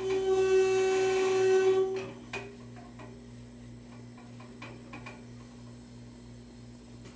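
Compressed air whistling and hissing out of an air-line pressure regulator for about two seconds as its knob is turned, a steady high-pitched tone over the hiss, then stopping. A few light clicks of the regulator being handled follow over a low steady hum.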